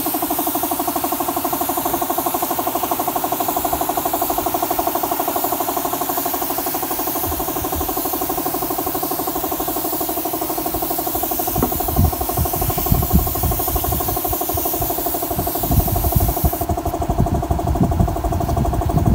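Air compressor running steadily with a fast even pulsing, while the suction-cup spray gun hisses as it sprays finish. The spray hiss cuts off about two and a half seconds before the end, and low thumps come in over the second half.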